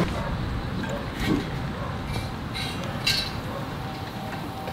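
A few light metallic clinks from the lid and fittings of a stainless-steel rail-mounted boat grill as it is opened, over a steady background noise.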